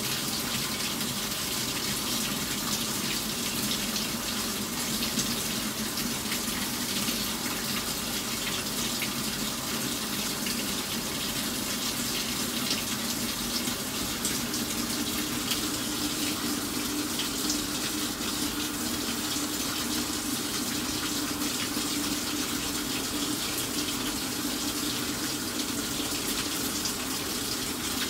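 Water pouring from the inlet into the stainless drum of an LG WT7300CW top-load washer, a steady splashing fill; this is the test cycle's fill stage, checking the hot and cold water inlet valves. A low steady hum joins the rush of water about halfway through.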